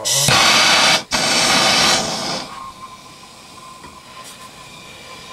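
Gas blowtorch being lit and burning: two loud rushes of hissing gas, each about a second long with a brief break between, then the flame settles to a steady, quieter hiss with a faint whistle.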